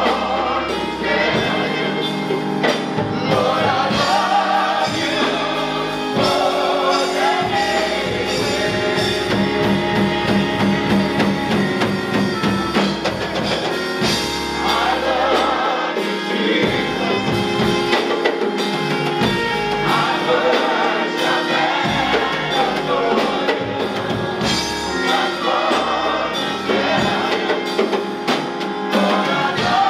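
Gospel choir singing with instrumental accompaniment and a steady bass line.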